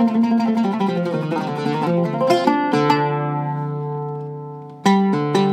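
A Zeryab oud with a cedar top and La Bella strings played solo: a quick run of plucked notes, then about three seconds in a low note is struck and left to ring, fading for about two seconds before the playing starts again near the end.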